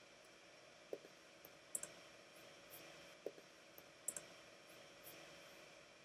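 Faint, scattered light clicks and taps, several in quick pairs, from hands working a laptop trackpad and an Apple Pencil on an iPad, over a low steady hiss.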